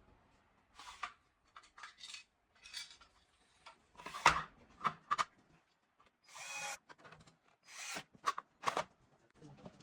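A string of short scraping, rubbing and clicking sounds of parts being handled and fitted during a PC assembly, with the sharpest about four seconds in.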